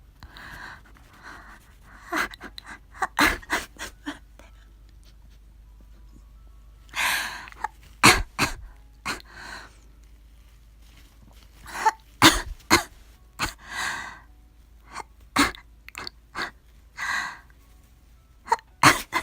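A young woman's nose being tickled to set off a sneeze: long breathy in-breaths followed by short, sharp sneezes. The loudest come about eight and twelve seconds in.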